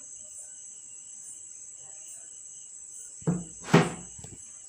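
Two knocks of a kitchen utensil against a pan or stove, about half a second apart, some three seconds in, over a steady high-pitched whine.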